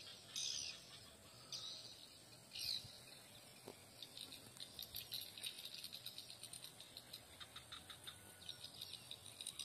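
Faint ambience of birds and insects. A few short high bird calls come in the first three seconds, then a fast chattering of chirps, all over a steady thin high insect whine.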